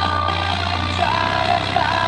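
Bass-heavy music played loud through bare, unmounted woofer drivers, a deep bass note under a melody line. The bass note changes about a second in.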